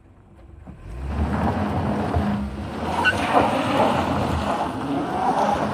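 A vehicle's engine running hard under load as it climbs a steep dirt slope, with tyre and gravel noise, swelling up about a second in and staying loud.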